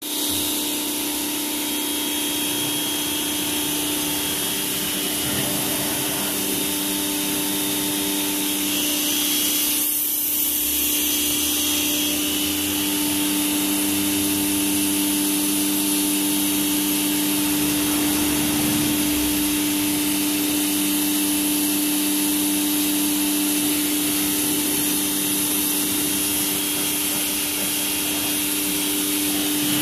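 Pressure washer running with a steady hum, its high-pressure water jet hissing as it sprays onto a motorcycle.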